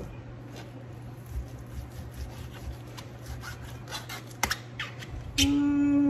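Knife slicing through raw thick-cut bacon on a plastic cutting board: soft cuts and light taps of the blade on the board, with one sharper click about four and a half seconds in. Near the end a louder steady held tone, like a hummed note, lasts under a second.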